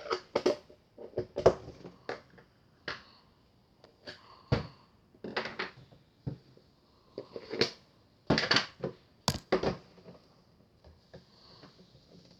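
Handling noise at close range: irregular clicks, knocks and rustles of objects being moved about, a dozen or more sharp strokes spread unevenly, the loudest about a second and a half in.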